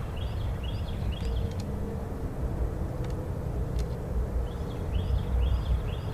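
Outdoor ambience: a steady low rumble, with a small bird chirping in two short runs of repeated calls, near the start and near the end, and a few faint clicks.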